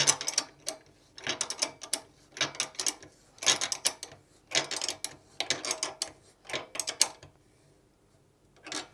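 13 mm ratchet spanner clicking in short runs, about one a second, as it tightens the bolt of a post clip; the clicking stops about seven seconds in, with one last short run near the end.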